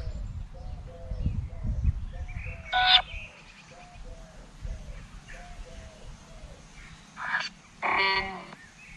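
Necrophonic spirit-box app sweeping: a steady train of short chopped tones about two a second, with a few louder voice-like fragments about three seconds in and near the end. A low rumble sits under the first few seconds.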